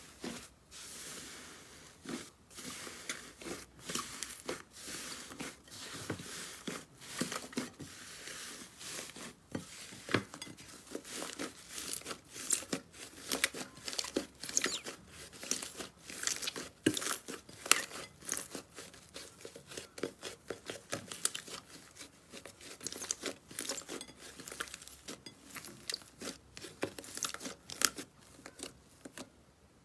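Slime being squeezed and pressed by hand, giving a dense run of irregular crackling and popping clicks.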